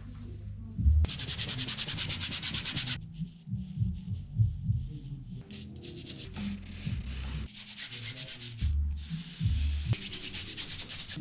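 A paintbrush scrubbing oil paint onto stretched canvas: rapid, repeated scratchy rubbing strokes in two stretches, about a second in and again near the end, with low thumps and handling noise between.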